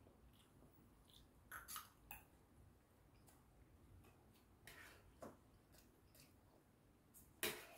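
Faint, scattered clicks of metal chopsticks and a spoon against a stainless steel divided meal tray, a few at a time, with the sharpest click near the end.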